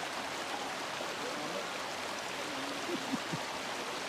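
Steady rush of flowing stream water, with faint distant voices in the middle.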